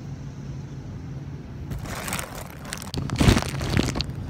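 Rustling, crackling handling noise right on the microphone as the hidden phone is moved. It lasts about two seconds from just before the middle, with a heavy bump a little after three seconds in, over a low steady hum.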